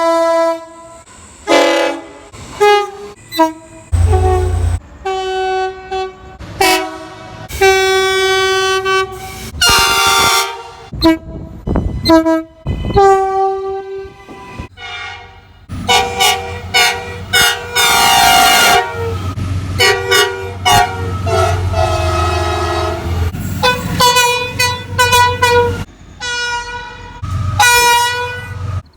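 Train horns sounding again and again: short toots and longer blasts, each a chord of several notes, with the chord changing from one blast to the next as different horns sound. A low rumble runs under some of the longer blasts.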